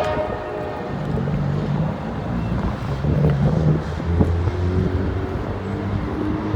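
Low, steady rumble of a Norfolk Southern diesel freight locomotive as the train approaches and runs by, with wind noise on the microphone.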